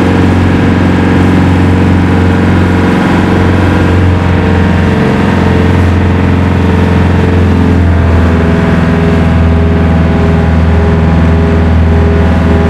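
An engine running steadily with a strong low hum, its note shifting slightly about eight seconds in.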